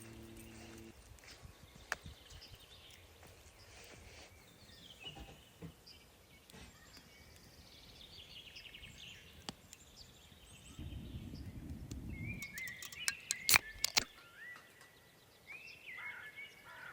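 Small songbirds chirping and trilling at intervals, with a run of quick, repeated chirps near the end. About two-thirds of the way in comes a low rushing noise lasting over a second, then a few sharp clicks.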